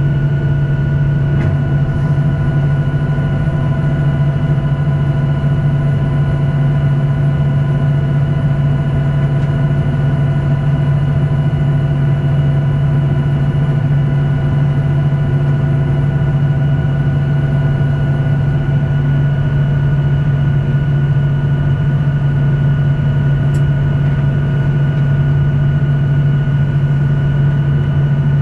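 Boeing 737-800 heard from inside the cabin while taxiing, its CFM56-7B engines at idle: a steady, loud low hum with a few steady whining tones above it.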